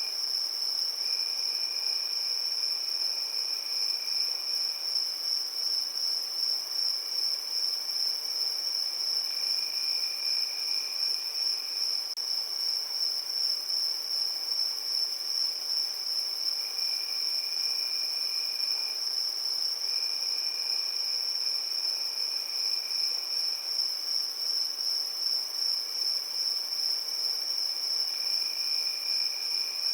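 Crickets chirping in a steady evening chorus: one high trill runs without a break. A second, lower trill starts and stops every few seconds, in stretches of one to three seconds.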